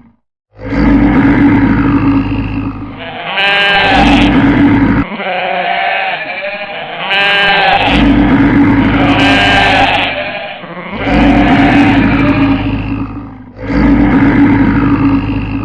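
Animal stampede sound effect: a loud, deep rumble of many running hooves with animal calls and bleats layered over it, looping several times. It cuts out briefly right at the start.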